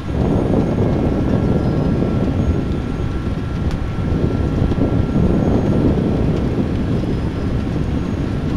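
Franz Kleine Cleanliner Mega sugar beet cleaner-loader working steadily under load: engine, pick-up rollers and conveyors running as sugar beets tumble through the machine. A faint thin steady whine sits above the machine noise.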